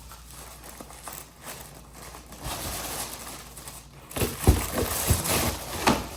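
Rustling and handling sounds, with several light knocks and thumps in the last two seconds.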